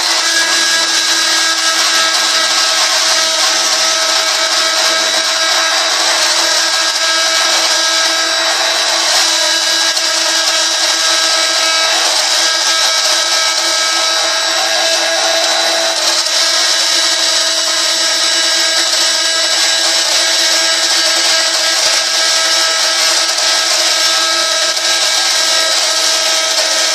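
CNC wood router running and cutting wood: a steady high-pitched spindle whine over the hiss of the cut.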